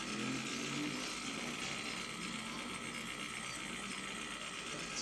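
The electric motor and gear drive of a Faller Break Dancer model fairground ride, running steadily.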